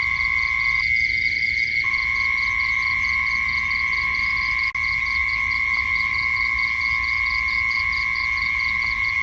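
Night insect chorus: a continuous high, steady trill with a rapid pulsed chirping above it and a low rumble beneath. The lower part of the trill drops out for about a second near the start, and the whole sound cuts out for an instant about halfway through.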